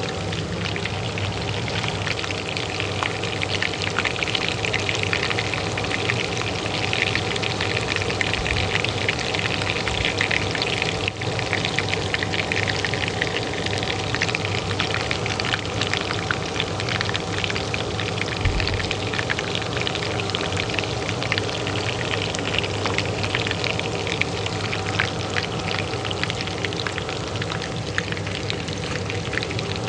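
Oil frying in a pan, crackling and spattering without pause, over the steady hum of a kitchen range hood fan.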